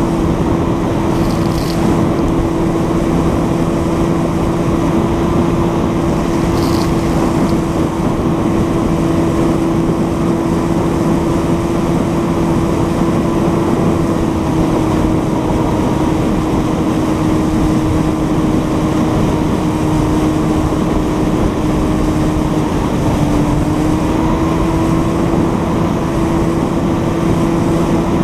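A boat's outboard motor running steadily at speed, over the rush of water and wind as the hull moves across the lake. Its pitch dips slightly a few seconds before the end and then comes back up.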